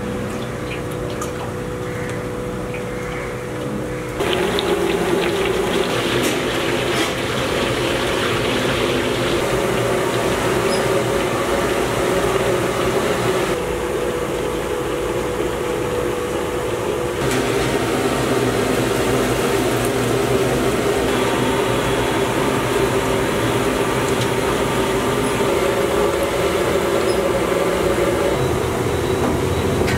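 Oil poured into a large iron kadai, then a steady, dense sizzle of batter-coated chicken pieces deep-frying in hot oil, starting about four seconds in.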